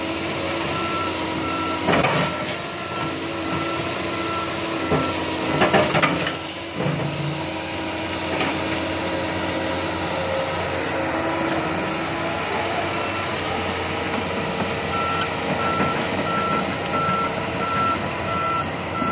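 Doosan crawler excavator's diesel engine running steadily under hydraulic work, with its alarm giving a steady on-off beep for the first few seconds and again near the end. Two loud clanks stand out, about two and six seconds in.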